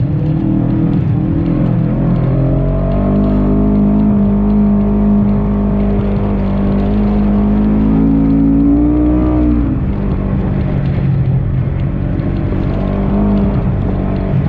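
Segway Villain side-by-side UTV engine pulling under throttle, its pitch climbing slowly for several seconds. About nine and a half seconds in the revs drop off suddenly, and it carries on at lower revs.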